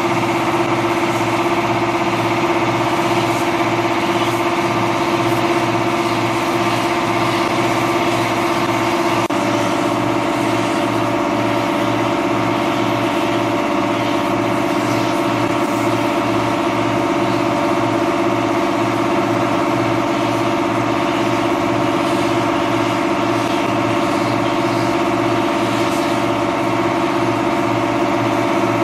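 Air compressor running steadily, with a fast pulsing hum, while a gravity-feed spray gun hisses as it sprays finish. The hum's pitch shifts slightly about nine seconds in.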